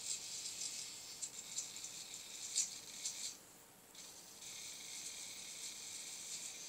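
Small servo motors driving a homemade camera gimbal, giving a high, rattly buzzing whir while the camera is panned and tilted. The whir stops briefly about three and a half seconds in, then starts again.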